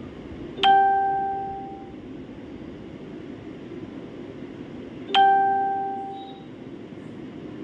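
A bell-like chime rings twice, about four and a half seconds apart, each ding starting sharply and ringing out over about a second, over a steady background hum.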